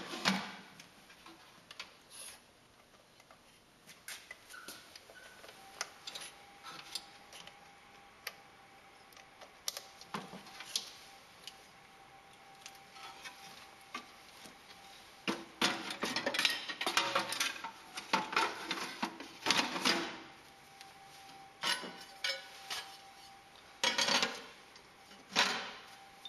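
Balls clattering and knocking through a ball tank and rolling-feed system in irregular bursts, sparse at first and busiest in the second half, over a faint steady tone that comes in about six seconds in.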